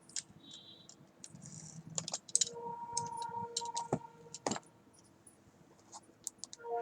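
Irregular light clicks and rustles of the JioFi router's box and packaging being handled and opened by hand.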